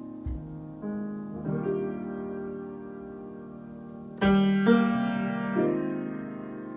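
Piano playing slow, sustained chords in a free improvisation, with new chords struck about a second in and a louder group of chords from about four seconds in that rings on and fades.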